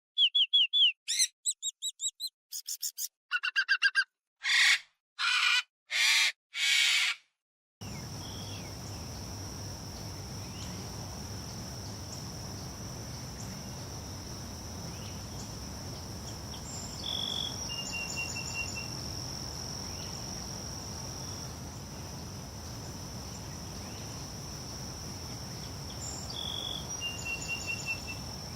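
Short, loud, pitched chirping calls in quick succession that stop abruptly about eight seconds in. A steady nature ambience follows: a constant high insect-like drone over a low rumble, with a short bird call, one note and then a quick run of lower notes, heard twice.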